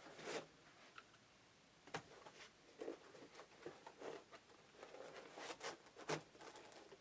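Faint handling noise: scattered light clicks and rustles as small drone parts and packaging are picked up and moved about.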